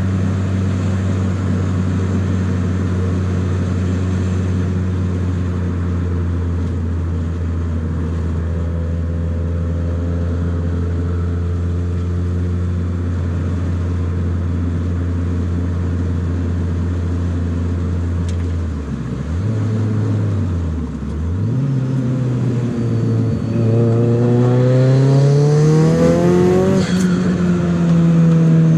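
Nissan 200SX S14a's turbocharged SR20DET four-cylinder engine running at steady cruising revs, dipping twice in pitch a little past halfway, then rising steadily under acceleration. Near the end the revs peak and ease off with a short sharp noise.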